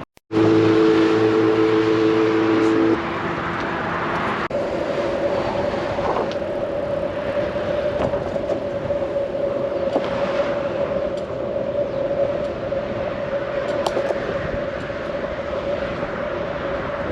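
Steady wind and rolling noise from a moving bicycle. A loud two-note horn sounds for about three seconds at the start, and a steady thin whistle-like tone carries on after it.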